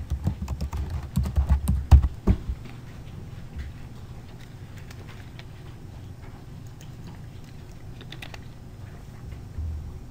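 Typing on a computer keyboard: a quick run of key clicks with low thuds in the first two and a half seconds, then sparse lighter clicks over a steady low hum.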